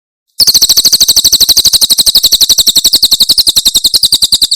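Cililin bird singing its 'tembakan' burst: a rapid, even string of high, sharp chirps, about a dozen a second. It starts about half a second in and cuts off abruptly near the end.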